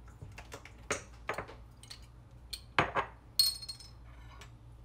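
Kitchen utensils and dishes clinking and knocking: a few light knocks, then a sharp metallic clink a little past three seconds in that rings briefly.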